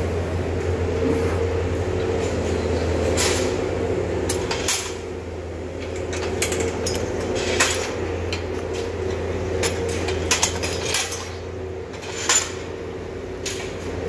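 Steady low mechanical hum with scattered sharp metallic clanks and knocks, about eight of them, from cows feeding at a steel headlock feed barrier and bumping against it.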